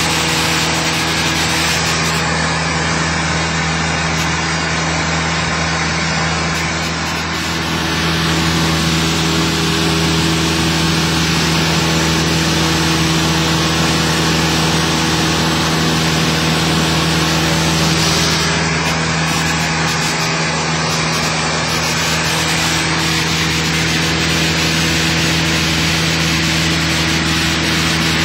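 Cessna 172's single piston engine and propeller droning steadily in flight, heard inside the cabin with a constant rush of wind noise.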